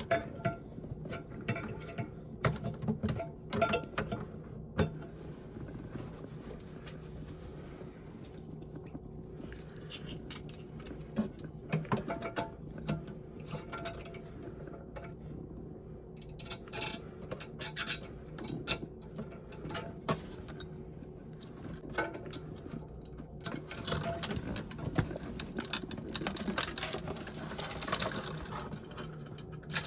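Irregular clicks, taps and clatter of small hard parts being handled, over a low steady hum.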